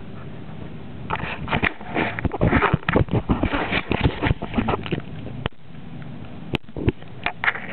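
Siberian husky gnawing and licking a raw lamb bone close up: a run of quick, irregular wet crunching and clicking for about four seconds, then a few more chews near the end.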